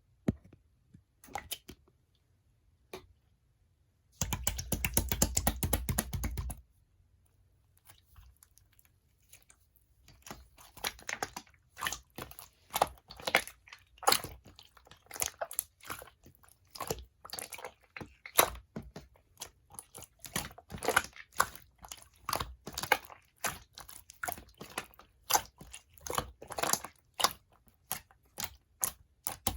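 Slime being pressed and worked by hand, making sticky clicking and popping sounds. About four seconds in there is a dense crackling run lasting a couple of seconds, followed later by a steady stream of irregular clicks and pops.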